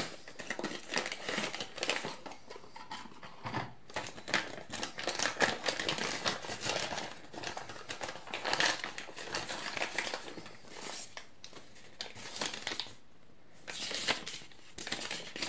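Plastic bag and paper packaging crinkling and rustling as it is handled, starting with the cardboard box being opened. The crackles are irregular and run on with a brief lull near the end.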